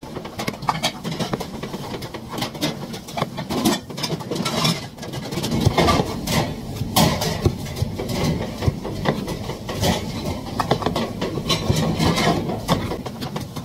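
Knife chopping bell pepper strips on a plastic cutting board: quick, irregular knocks of the blade on the board, several a second, over steady low background noise.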